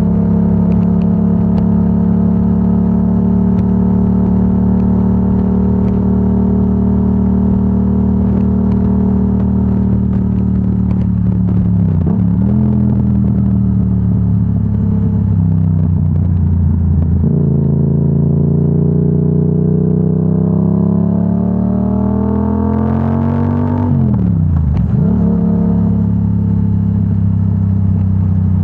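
Yamaha R7's 689 cc parallel-twin engine through a Yoshimura AT2 full exhaust, heard from the rider's position, running at a steady cruise. About two-thirds of the way in, the revs climb steadily for several seconds as the bike accelerates, then drop sharply and come back up near the end.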